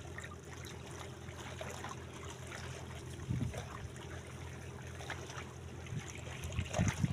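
Water lapping and trickling against shoreline rocks, a steady wash, with a few faint soft knocks about three seconds in and near the end.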